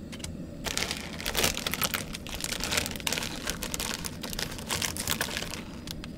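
Plastic instant-ramen packet crinkling and rustling as it is handled and the powdered soup sachet is pulled out. A fast, irregular run of small crackles starts under a second in and dies away near the end.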